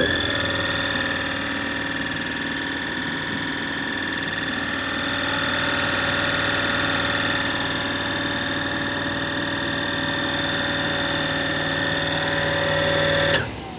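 Truck-mounted piston air compressor running steadily with a high-pitched whine over its motor hum. It starts abruptly and cuts off suddenly near the end.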